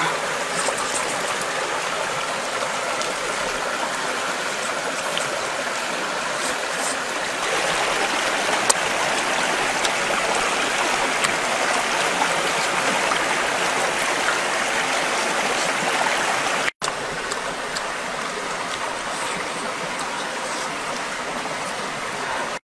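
Steady rush of running water, like a stream, growing a little louder after about seven seconds and cutting out for an instant near the end.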